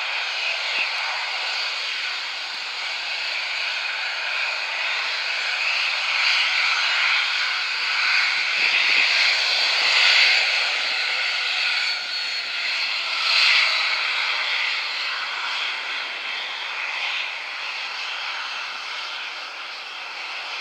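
Four turbofan engines of a Boeing 747-400 at takeoff thrust during lift-off and initial climb: a continuous rushing jet noise that swells to its loudest about ten seconds in, surges once more a few seconds later, then eases a little as the aircraft climbs away.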